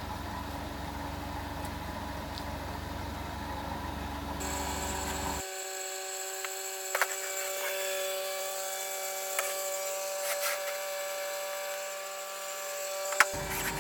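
Daewoo G20SC LPG forklift engine idling. About five seconds in, the deep part of the sound drops out, leaving a thinner steady hum broken by a few sharp clicks and knocks.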